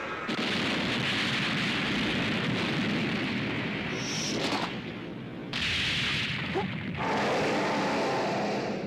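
Animated battle sound effects: a loud, dense rushing and rumbling noise of energy blasts and impacts, dropping away briefly about halfway through before surging back.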